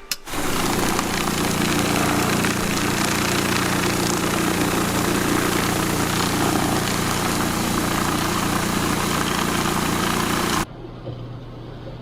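Harbor Freight tumbler starting with a click and running, its motor humming steadily under the rushing noise of sand, tumbling rocks and metal parts churning inside; the sound stops abruptly near the end.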